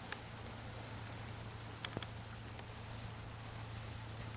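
Insects chirring steadily with one high, unbroken tone, over a low steady hum and a few faint clicks.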